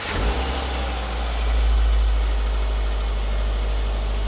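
2009 Subaru Forester's 2.5-litre SOHC EJ flat-four engine, just started, running at idle with a steady low hum. It runs a little faster around two seconds in, then settles.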